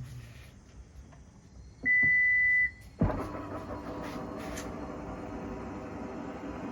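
Toyota Harrier (80 series) power liftgate: a single steady electronic warning beep lasting under a second, then about a second later the liftgate's electric drive motor starts with a jolt and runs with a steady hum as the gate moves.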